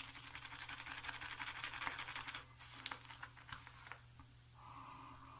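Badger shaving brush whisking soap into lather in a shave bowl: a fast, fizzy swishing that stops about halfway through, followed by a few light clicks.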